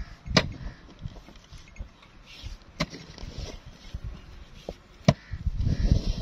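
A hoe blade chopping into sandy ground: three sharp strikes spaced a couple of seconds apart, then a rougher scraping as sand is dragged out near the end.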